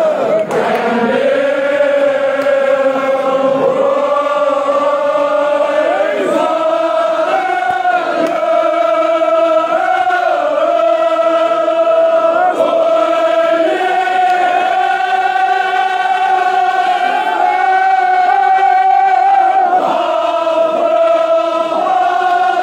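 A group of men chanting a Kashmiri marsiya (Shia elegy) together, drawing each line out in long held notes several seconds apiece, with the pitch stepping to a new note every few seconds.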